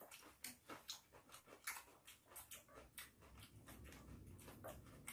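Faint eating sounds: chewing and mouth smacks mixed with light clicks of chopsticks on rice and dishes, a string of short irregular clicks.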